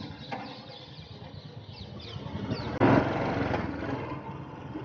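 Royal Enfield Bullet motorcycle's single-cylinder engine running on the move, with a louder stretch about three seconds in.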